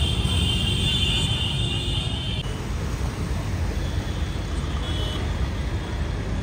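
Road traffic noise: the steady rumble of cars and motorcycles crawling in congested traffic. A high steady ringing stops abruptly about two and a half seconds in, where the footage cuts.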